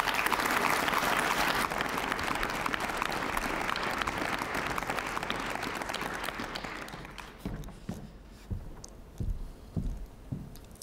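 Audience applauding at the end of a talk. The clapping fades away over about seven seconds, then a few soft thumps follow.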